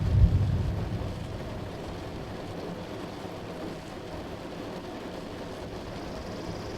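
Steady rain, with the end of a low thunder rumble that peaks just after the start and fades out within about a second.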